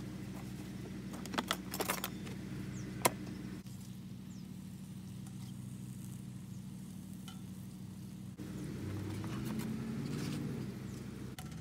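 Clicks and one sharp snap of a plastic storage box's lid being handled, over a steady low hum.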